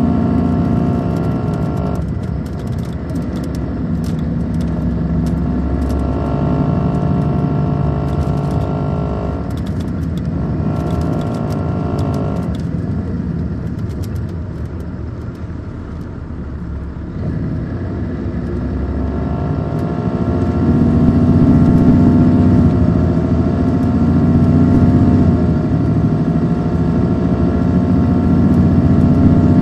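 Caterpillar C13 diesel engine of an MCI D4500CL coach running under way. Its note drops about two seconds in, rises and dips through the middle, then climbs and grows louder from about two-thirds through as the coach accelerates, with scattered light clicks in the first half.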